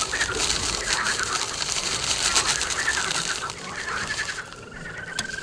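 Birds chirping, with a crackling plastic-bag rustle for the first few seconds. A thin, steady high tone comes in near the end.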